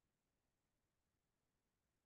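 Near silence: only the recording's faint noise floor.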